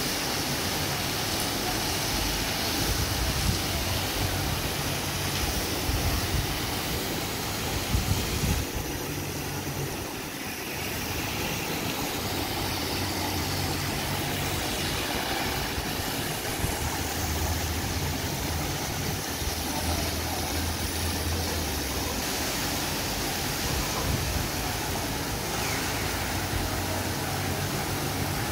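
Steady rush and splash of water jets spraying into a hydrotherapy pool, over an uneven low rumble.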